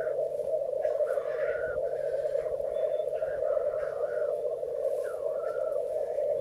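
A chorus of male black grouse rookooing at a lek: a steady, bubbling cooing from many birds at once. Now and then a hoarse hiss rises over it, the males' sneezing display call.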